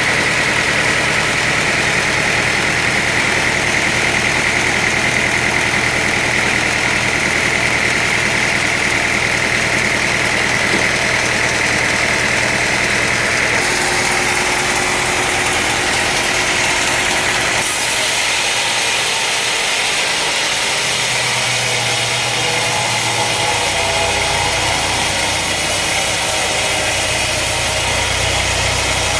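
Sawmill machinery running: a steady, loud motor noise with a high whine, which changes abruptly about halfway through and again a few seconds later, leaving a lower hum.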